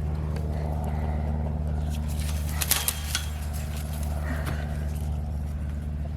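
A steady low motor hum runs throughout, with a brief cluster of sharp clicks and rustling about two and a half to three seconds in.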